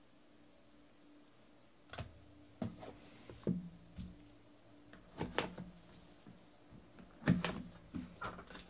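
Hands handling cardboard trading-card boxes on a tabletop: a string of light knocks, taps and scrapes starting about two seconds in, the loudest about seven seconds in.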